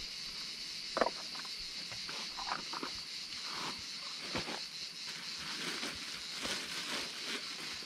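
Steady, high-pitched chirring of an evening insect chorus, likely crickets. Scattered close clicks and rustles sound over it, the sharpest about a second in.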